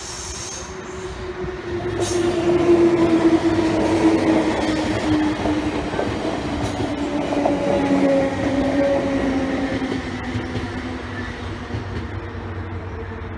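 A Z 6400 suburban electric multiple unit running past and away. Its electric traction-motor whine slides slowly down in pitch over the rumble of wheels on the rails. The sound is loudest a couple of seconds in, then fades gradually.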